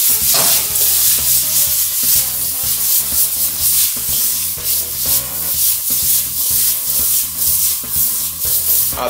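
Chopped bell peppers sizzling and frying in a wok over a gas flame, tossed again and again, with a steady hiss broken by repeated short scrapes and rattles.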